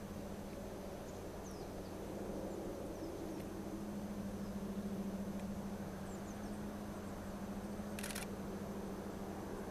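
Low, steady drone of a DD51 twin-engined diesel-hydraulic locomotive hauling a freight train, swelling a little midway. There are faint high bird chirps, and a brief hiss about eight seconds in.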